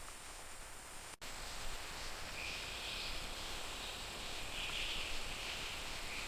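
Rainforest ambience: a steady hiss, broken by a brief gap about a second in, with a high wavering drone coming in from about two seconds in and swelling and fading.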